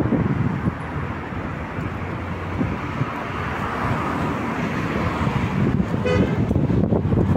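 Road traffic rumbling, with one short car horn toot about six seconds in.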